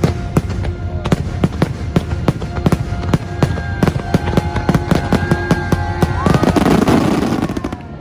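Fireworks bursting in quick, irregular bangs over music with held tones and a low drone. About six seconds in, a dense crackling swell builds up, then it all dies away at the end.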